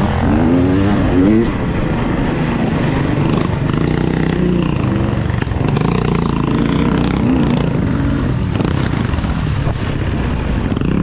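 Quad bike (ATV) engines running steadily, with a pitched sound that rises and falls in the first second or so.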